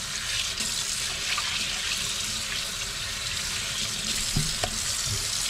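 Kitchen tap running steadily into a stainless steel sink, the stream splashing over a trout held under it to be rinsed.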